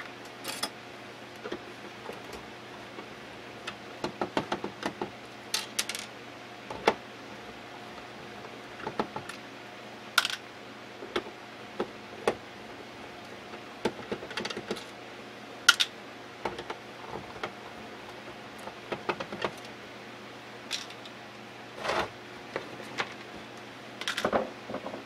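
Irregular clicks, taps and knocks of a plastic DSL modem case being worked open with a screwdriver and handled on a wooden bench, over a faint steady hum.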